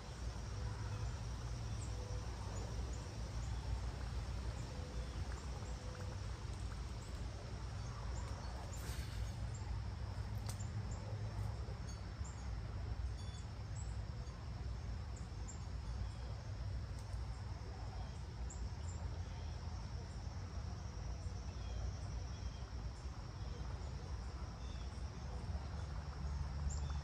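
Steady chorus of crickets and other insects over a continuous low rumble, with a couple of faint clicks about a third of the way in.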